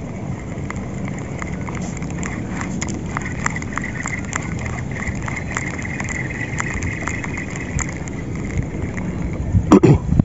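Spinning fishing reel being cranked: a faint steady whir with quick, irregular clicks, over steady wind noise on the microphone. A few louder knocks come near the end.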